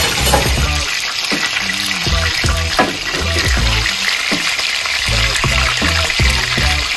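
Fish frying in hot oil: a steady, dense sizzle, with background music's bass beat underneath.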